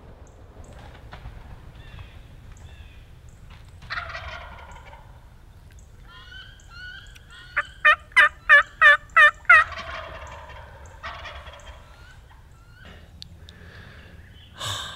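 Wild turkeys calling in the woods. A gobbler gobbles about four seconds in and again near ten seconds. Between the gobbles comes a loud, sharp run of about seven turkey yelps, roughly three a second.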